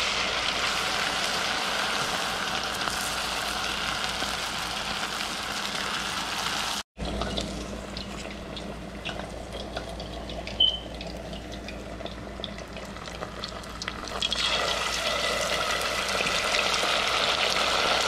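Beer-battered fish strips deep-frying in a pot of hot oil, a steady sizzling and bubbling. It breaks off for an instant about seven seconds in, then runs quieter with a few light clicks, and grows louder again near the end.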